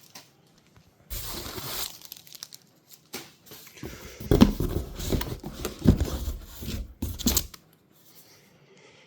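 Packaging being torn open and crinkled: a short tear about a second in, then a longer stretch of rustling with a few knocks as the part inside is handled.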